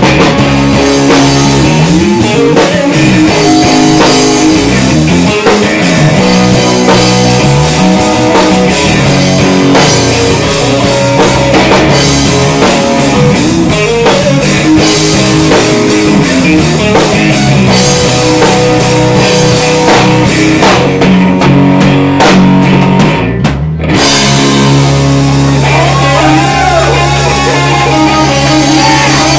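Live blues-rock band playing loud: lead electric guitar over bass guitar and a drum kit. About three-quarters of the way through, the steady drumming gives way to a few separate accented hits, then the bass holds long low notes while the guitar bends and sustains notes over it.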